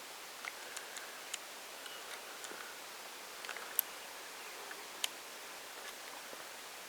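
One-week-old lion cub suckling: faint, irregular small clicks and smacks, with two sharper ticks about four and five seconds in.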